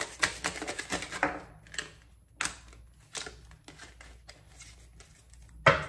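Tarot cards being shuffled and handled: quick papery card clicks for about the first second, then a few scattered taps and one sharper snap near the end.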